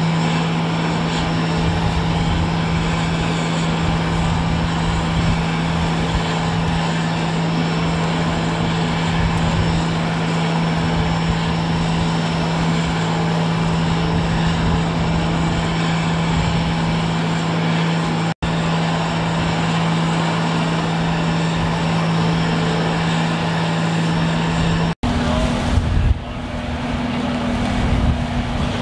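A steady engine drone over a dense wash of surf and wind noise. After a brief dropout about 25 seconds in, the drone comes back at a higher pitch.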